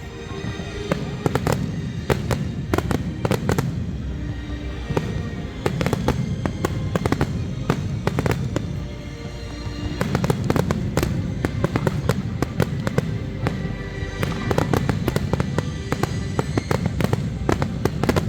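Fireworks display: shells bursting in rapid, irregular succession, dozens of sharp bangs and crackles, with music playing underneath.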